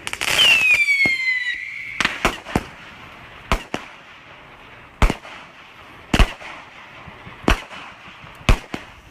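Fireworks going off: a whistling firework gives a loud whistle that falls in pitch for about a second and a half near the start. A string of about nine sharp firework bangs follows at uneven spacing.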